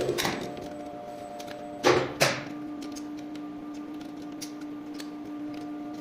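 Two sharp knocks, about a third of a second apart, about two seconds in, over a steady low hum.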